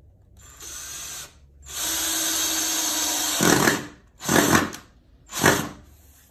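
Cordless drill driving screws into pine chair-back slats: a brief run, a steady longer run, then three short, louder bursts near the end as the screws are driven.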